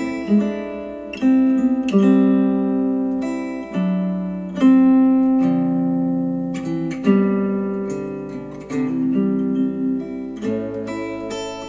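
Slow acoustic guitar music playing through KEF Q350 bookshelf speakers driven by an Audiolab 6000A amplifier. Plucked notes and chords start every second or two and are left to ring out and fade.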